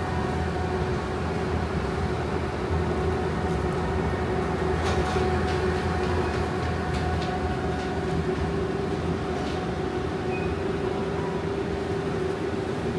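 Steady mechanical hum with a constant low tone over a rumble, and a few faint clicks.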